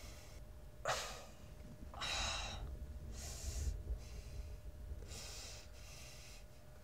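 A person breathing audibly in the quiet, four separate breaths over about five seconds.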